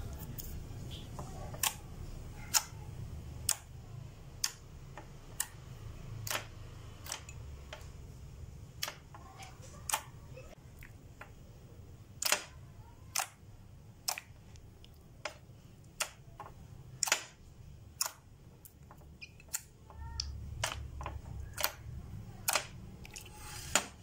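Glossy slime being poked and squished by fingers in a glass container, giving short sharp wet clicks and pops about once a second.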